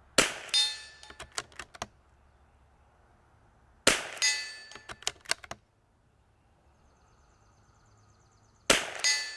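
Three shots from a bolt-action .22 LR rifle, one just after the start, one about four seconds in and one near the end, each with a short metallic ringing and followed by a few quick clicks.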